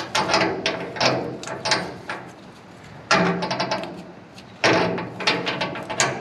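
Hand ratchet wrench clicking on a leaf-spring shackle bolt, in three runs of rapid metallic clicks with short pauses between the strokes.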